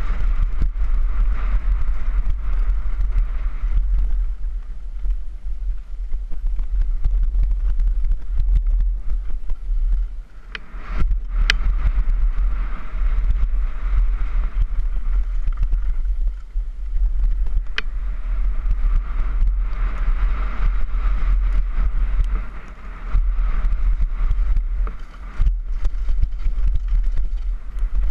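Wind buffeting a helmet-mounted camera's microphone on a downhill mountain-bike descent, a steady low rumble, mixed with tyres rolling on dirt and the bike rattling and knocking over bumps. A couple of sharp clicks stand out, and the sound drops briefly about ten seconds in.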